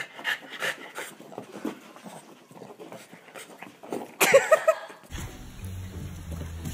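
Boston terrier huffing breaths, about three a second, then a short burst of loud, pitched yelping just after four seconds in. Background music takes over about five seconds in.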